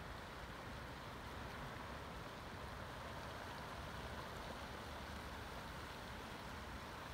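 Steady rush of shallow, muddy flash-flood water spreading across a normally dry sandy desert riverbed.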